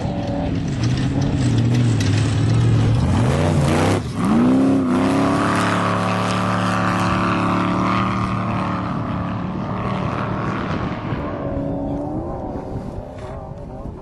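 Off-road race truck's engine running hard as it passes: the revs dip briefly about four seconds in, climb again and hold steady, then the sound slowly fades toward the end.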